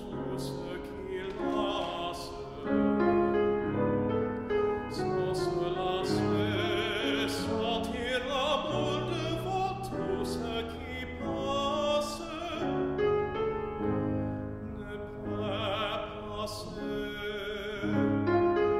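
Lyric tenor singing a classical art song in full operatic voice with vibrato, accompanied by a grand piano; about eight seconds in the voice slides upward in pitch.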